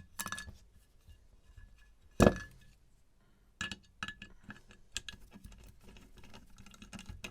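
Metal parts of a disassembled hard disk drive clinking and knocking as they are handled, with a short ringing note on the sharper hits. The loudest clink comes about two seconds in, with lighter knocks and clicks around it.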